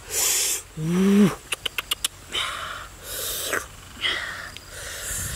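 A person eating with his fingers: loud breathy sniffs and exhalations through the nose and mouth, and a pitched 'mmm' of enjoyment about a second in. This is followed by a quick run of wet lip smacks and chewing clicks.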